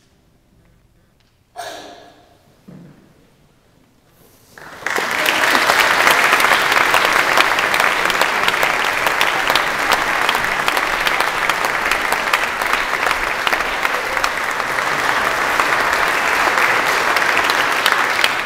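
Audience applause in a chapel. It breaks out about five seconds in, after two brief sudden sounds, and goes on as steady, dense clapping.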